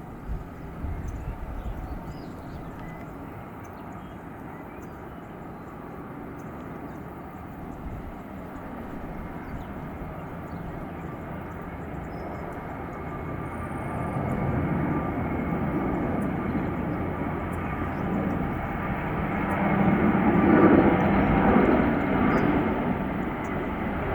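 Jet engines of an Airbus A321-231, its IAE V2500 turbofans, a steady rumble with a faint whine. The sound grows louder through the second half and is loudest about twenty seconds in.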